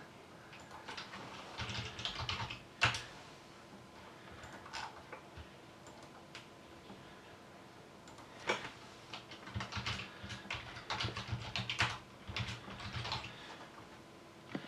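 Typing on a computer keyboard in two quick runs of key clicks, with a few single clicks in between.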